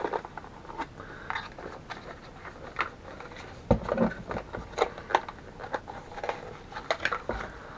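Accessories being taken out of a small camera box by hand: scattered crinkling, rustling and clicking of packaging, with a couple of dull knocks.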